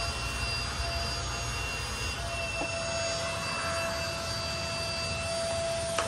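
A vacuum cleaner motor running steadily: an even rushing noise with a constant high whine.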